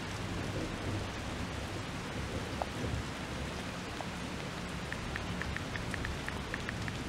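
A steady hiss of rain, with a quick, even run of about a dozen light clicks about five seconds in: a smartphone's keyboard taps as it is typed on.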